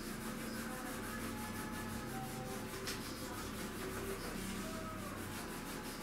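Rapid, rhythmic scrubbing strokes by hand on a kitchen worktop, several rubs a second kept up steadily.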